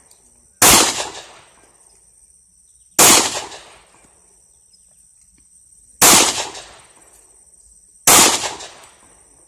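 Four gunshots about two to three seconds apart, each trailing off in a short echo.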